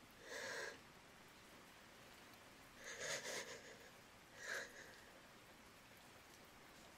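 A woman's soft, audible breaths close to the microphone: three short breaths, near the start, about three seconds in and about four and a half seconds in, with quiet gaps between.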